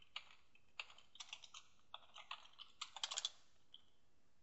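Computer keyboard typing: irregular keystrokes with a quick flurry about three seconds in, then the typing stops.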